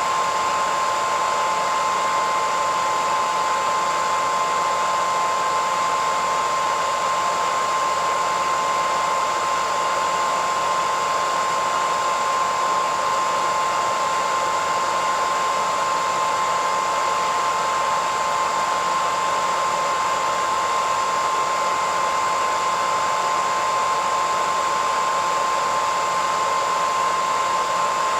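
Hairdryer running steadily: an even rush of blown air with a high whine near 1 kHz, unchanging throughout.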